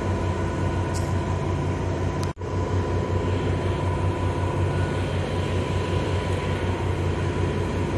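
Steady drone of heavy machinery: a low hum with a constant higher tone over it. The sound drops out for an instant a little over two seconds in.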